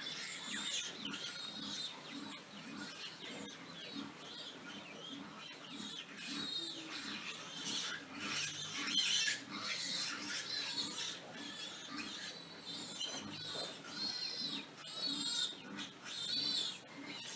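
Several pigs squealing in high, wavering screams, over a steady run of low grunts at about two or three a second.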